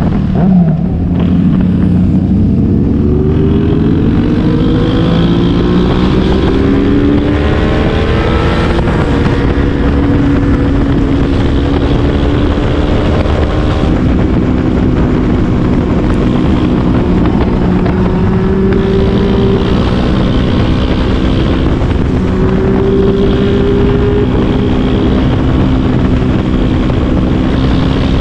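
Sport motorcycle engine heard from the rider's seat over wind rush: its pitch dips about half a second in, climbs steadily for several seconds as the bike accelerates, then holds fairly level while cruising.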